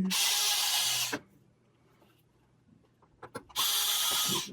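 Small electric screwdriver running in two short bursts of about a second each, backing out circuit-board screws.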